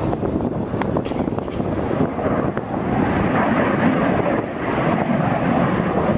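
Northrop B-2 Spirit bomber flying past, its four turbofan jet engines giving a steady jet rumble that grows louder about halfway through, heavily mixed with wind buffeting on the microphone.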